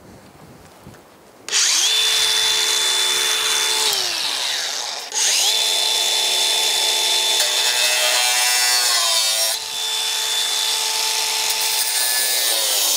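Cordless drill drilling in three long runs, its motor giving a steady whine. The first run winds down in pitch as the trigger is let off. In the middle run the pitch sags for a couple of seconds as the bit loads up.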